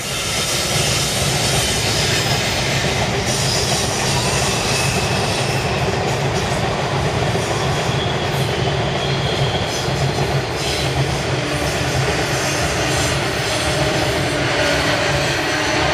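Freight train rolling past on an elevated viaduct: a red electric locomotive and its tank wagons, with a steady rumble and clatter of steel wheels on the rails and a thin high wheel squeal at times.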